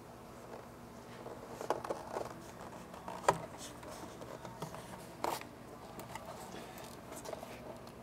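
Scattered light clicks and knocks of hand work on the engine's plastic upper intake breather as it is worked loose. The sharpest knocks come about two, three and five seconds in, over a faint steady hum.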